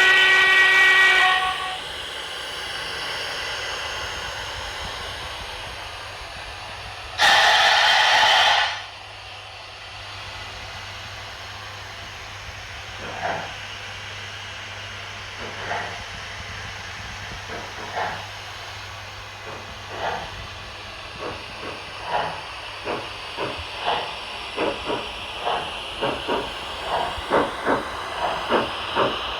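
HO scale model steam locomotive's LokSound 5 sound decoder playing through its speaker. A steam whistle ends about a second in, steam hisses, and a loud blow-off of steam comes about seven seconds in. Exhaust chuffs then start, slowly at first and speeding up to several a second as the locomotive gets under way.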